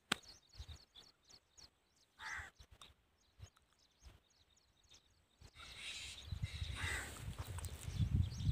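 Open-air field ambience: birds chirping and calling faintly, with a single sharp click at the start and wind rumbling on the microphone in the second half. No engine is running.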